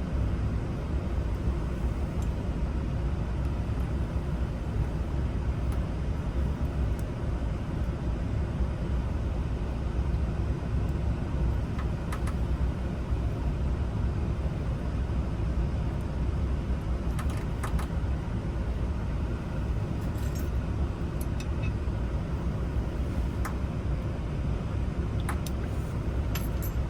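Steady low background rumble, with a few faint, sharp metal clicks in the second half as small parts of an ignition lock cylinder are handled and fitted.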